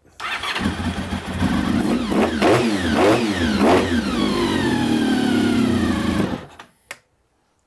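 Honda RC45's 750 cc V4 engine catching on fuel squirted into its intakes and running, revved up and down a few times, then stopping about six seconds in. That it fires on the primed fuel shows the engine is starting lean.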